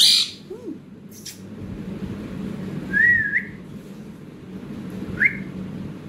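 Rose-ringed parakeet calling: a loud harsh burst at the start, then a whistled note that rises and falls about three seconds in, and a short rising chirp near the end.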